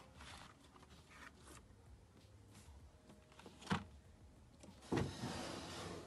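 Handling a cardboard box of felt-tip markers: faint rustling, a single thump a little past halfway as the box is set down on the desk, then a knock near the end followed by about a second of scraping as a wooden drawer slides shut.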